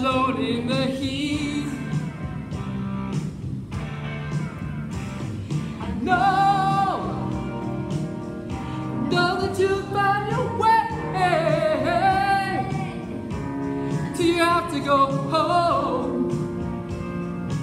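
Background music: a song with a singer holding long wavering notes over a steady backing line.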